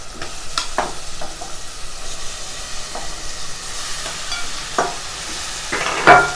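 Marinated mutton pieces sizzling in hot oil and onion-tomato masala in a pressure cooker as they are stirred in, with the spoon scraping against the pot a few times, the loudest scrape near the end.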